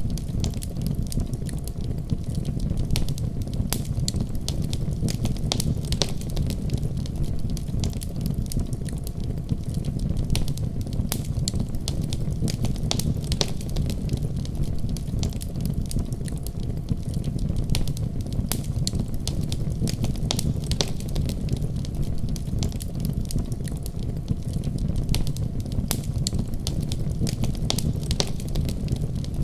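Wood fire burning in a fireplace: a steady low rumble of flames with frequent sharp crackles and pops scattered irregularly throughout.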